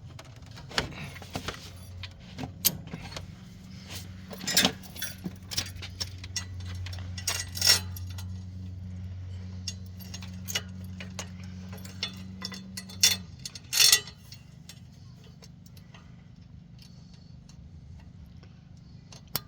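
Metal clinks, clanks and rattles as a wood chipper's PTO driveshaft yoke is worked onto the tractor's splined PTO stub and latched. Under them is a low steady hum that stops abruptly about thirteen seconds in.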